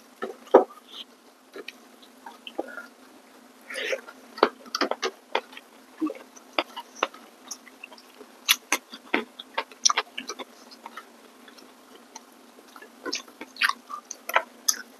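Eating sounds: irregular, sharp mouth clicks and smacks of chewing, with the light crunch of fresh greens and rice being picked up by hand.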